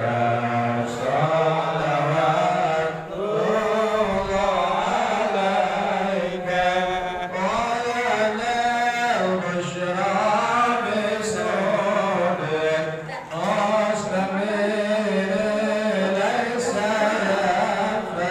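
Chanted singing: voices in a continuous melodic line that bends and glides.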